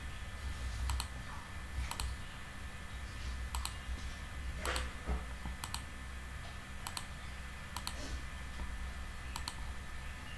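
Computer mouse button clicking again and again, setting points one after another: sharp ticks, many in close pairs, about one a second at uneven spacing, over a low steady hum.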